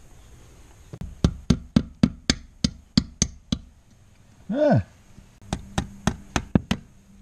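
Ball-peen hammer tapping on wooden eave trim in quick, even strikes, about four a second, starting a second in and pausing briefly midway. During the pause a short pitched sound rises and falls.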